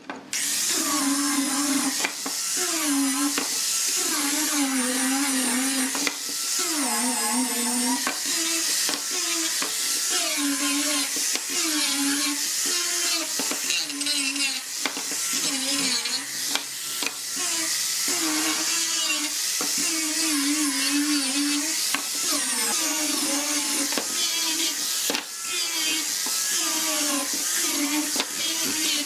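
Small angle grinder fitted with a sanding disc, running at high speed and sanding wooden boards. Its whine dips and recovers in pitch again and again as the disc is pressed into the wood, over a steady gritty hiss of abrasion.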